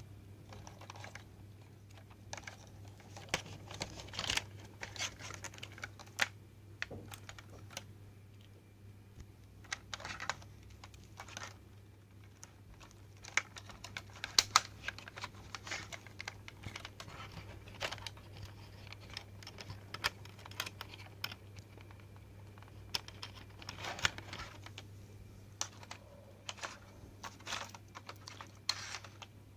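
Cables being handled and connectors plugged into a bare LCD TV controller board: irregular clicks, taps and rustles of plastic and metal plugs and wires, over a steady low hum.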